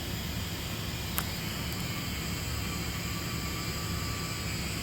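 Steady low hum of a semi truck running, heard inside the cab, with a single sharp click about a second in.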